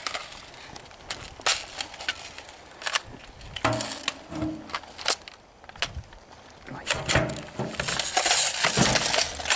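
Scattered clicks, clacks and rustling from airsoft rifles and gear being handled, including a magazine being pushed into a rifle, with a denser scraping rustle near the end.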